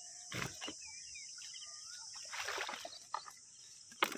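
Outdoor ambience of small birds chirping over a steady high insect drone. A dull thump comes about half a second in, and a brief noisy splash-like burst comes about two and a half seconds in.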